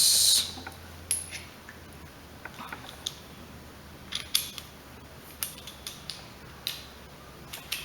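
Scattered light metallic clicks and clinks, about seven in all, of a socket wrench and socket being fitted and worked on a mower's carburetor mounting bolts.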